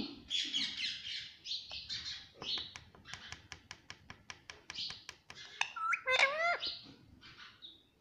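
Indian ringneck parakeet chattering and squawking, with a run of quick clicks at about five a second in the middle, then a few loud rising whistled notes about six seconds in.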